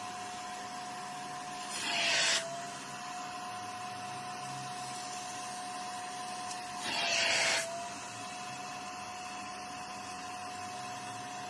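Kärcher Puzzi spray-extraction vacuum running with a steady high motor whine. Twice, about two and seven seconds in, a loud hissing rush lasts under a second, and the whine dips slightly in pitch while it lasts.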